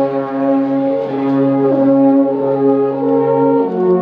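An ensemble of about nine wooden alphorns playing together in harmony: long held chords, with the lowest note shifting to a new chord about three and a half seconds in.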